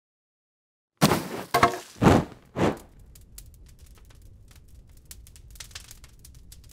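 Four loud thunks and cracks about half a second apart, followed by a run of faint, irregular crackling clicks.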